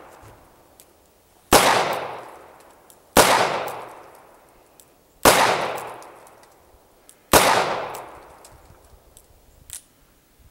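Four gunshots from a Smith & Wesson J-frame Airlite Titanium .38 Special revolver, fired slowly about two seconds apart, each echoing for about a second.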